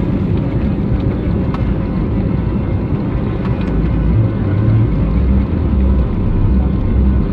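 Steady low rumble of an Airbus A320neo's engines and airflow heard from inside the passenger cabin, with some heavier low surges from about four seconds in.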